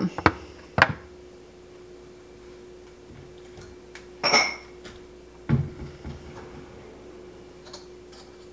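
Kitchen handling sounds: two sharp clicks early, as a knife is set down on the stone countertop, then a ringing clink of dishware about four seconds in and a heavier thud of a cupboard or drawer a second later. Light clicks near the end come as a kitchen drawer is pulled open, over a faint steady hum.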